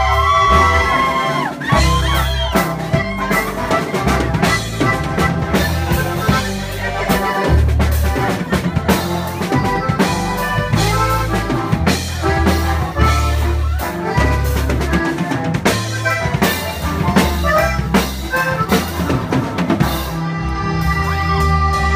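Live regional Mexican band playing an instrumental passage with no vocals: accordion melody over electric bass and a drum kit keeping a steady beat.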